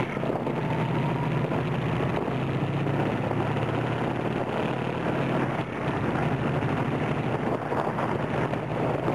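A car being driven, heard from inside the cabin: steady engine hum and road noise.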